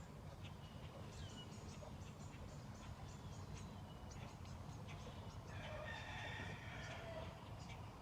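Faint rooster crowing: one call of about two seconds, starting about five and a half seconds in, over scattered faint high ticks.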